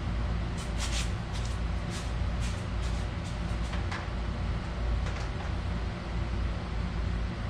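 Several light clicks and rattles, as of parts and tools being handled during work on an ATV's wiring, over a steady low hum.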